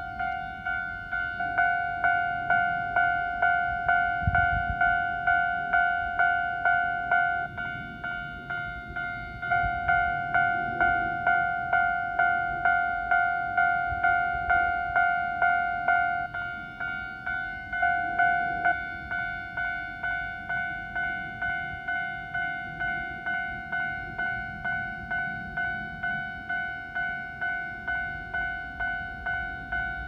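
Japanese railway level-crossing warning bell ringing its repeated electronic 'kan-kan' tone, about two strokes a second, signalling that a train is approaching and the crossing is closed. It grows somewhat quieter about two-thirds of the way in.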